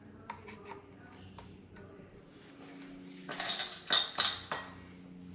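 Small metal objects clinking and rattling together for about a second, a little over three seconds in, after a few light clicks.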